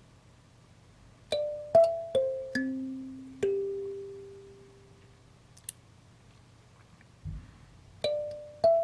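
Background music: a short phrase of bell-like electric piano notes, each struck and then ringing away, with a pause before the phrase starts again near the end. A soft low thump comes in the pause.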